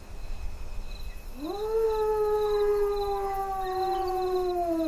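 A single long animal howl, dog-like, from a wild predator in the dark. It swoops up in pitch about a second and a half in, then holds and slowly falls until it stops near the end.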